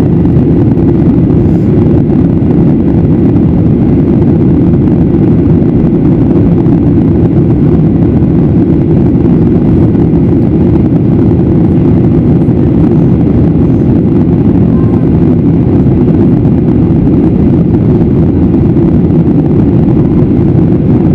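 Steady, loud low rumble of a Boeing 737-800's CFM56-7B turbofan engines and airflow, heard inside the passenger cabin as the airliner climbs after takeoff.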